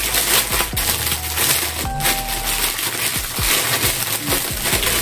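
Clear plastic packaging crinkling and crackling continuously as it is handled and pulled open by hand.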